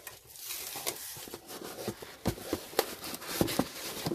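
Cardboard shipping carton and its paper packing being handled: rustling and scraping of cardboard flaps and paper, with several sharp knocks and taps in the second half as the boxed item inside is lifted out.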